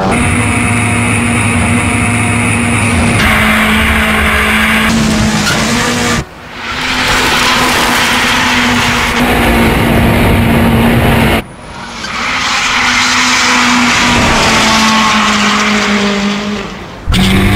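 Ford Fiesta rally car's turbocharged four-cylinder engine held at high revs while the car drifts, tyres squealing and skidding. The sound drops away briefly and builds back three times.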